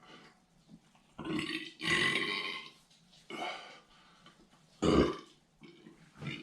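A man burping several times in a row. The longest burp comes about two seconds in, and a short, sharp, loudest one comes about five seconds in.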